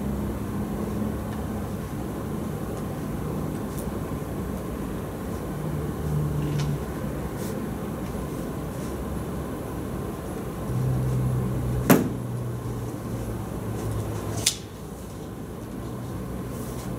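Quiet meeting-room background with a steady low hum. There is a sharp click about twelve seconds in and another about two and a half seconds later, after which the hum drops a little.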